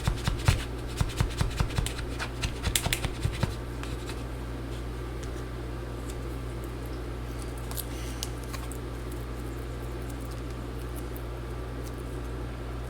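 Plastic card scraping and prying under the MacBook battery's adhesive, heard as a quick run of scratchy clicks for about the first three and a half seconds. After that only a steady low hum remains.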